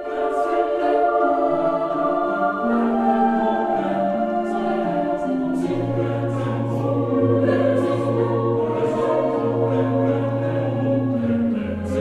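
Slow background music of long held chords that move step by step; a deep bass note comes in about halfway.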